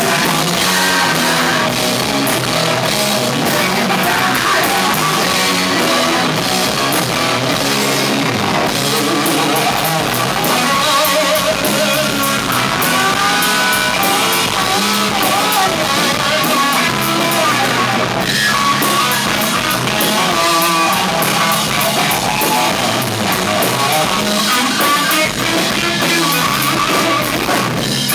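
Live rock band playing loud with electric guitars and a drum kit, recorded on a small camera's microphone that can't handle the volume, so the sound is harsh and poor.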